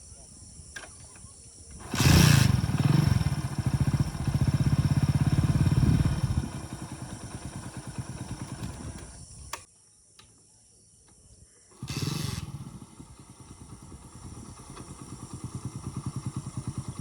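Motorcycle engine started about two seconds in, running loudly for a few seconds before settling to a lower idle. It is switched off abruptly near the middle, then started again a couple of seconds later and left idling with an even pulsing beat.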